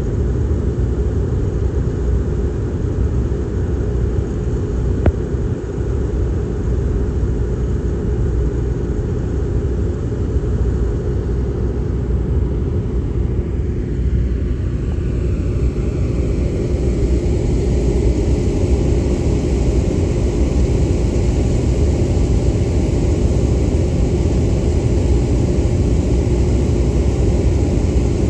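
Jet airliner engines heard across an airfield as a steady low rumble, with a hiss in the upper range that builds from about sixteen seconds in. A single click about five seconds in.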